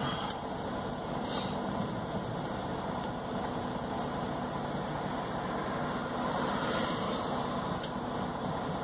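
Semi truck's diesel engine idling steadily while the truck stands at a light, heard from inside the cab.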